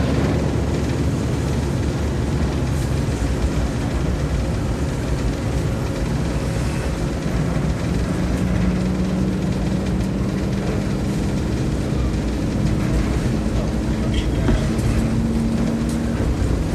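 Diesel railcar pulling away from a station, its engine running with a steady low rumble. The engine note climbs slowly in pitch through the second half as the train gathers speed.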